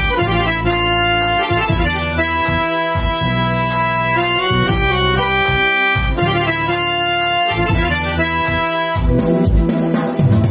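Korg Pa-series arranger keyboard playing a melody of held notes over a low bass accompaniment. About nine seconds in, the sound switches to a busier, more rhythmic texture.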